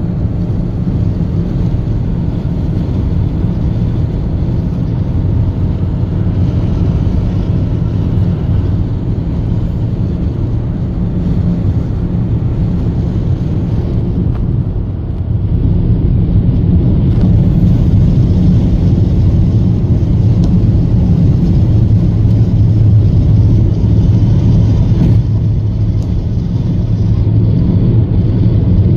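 Steady low rumble of a car driving at highway speed, heard from inside the cabin. It grows a little louder about halfway through.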